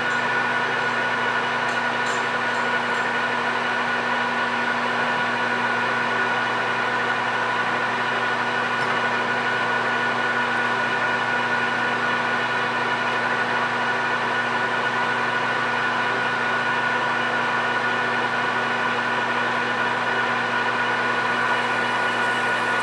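PM1660 manual engine lathe running steadily at 600 RPM, a constant machine hum with several steady tones. Near the end a half-inch screw machine drill in the tailstock starts cutting into the spinning 6061 aluminum bar.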